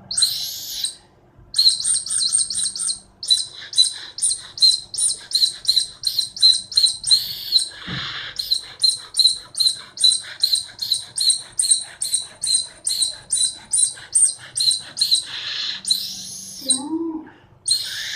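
A rapid string of short, high-pitched chirping squeaks, about three a second, made by a person as a strange noise aimed at a dog, with a longer squeak near the start and again near the end. A short, lower gliding sound comes about a second before the end.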